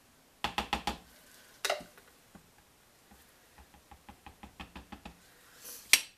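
Silicone spatula tapping and scraping against a plastic cup of soap batter: a quick run of about five taps, a single louder knock, then a string of light ticks. Near the end comes a sharp clack as the spatula is set down on the board.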